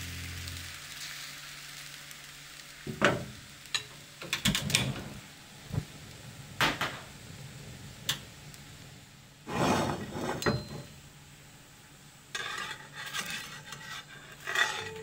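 Crepe batter sizzling in a hot frying pan on a gas stove, with scattered sharp clicks and knocks of the pan and utensils. Near the end, a palette knife scrapes under the edge of the cooked crepe.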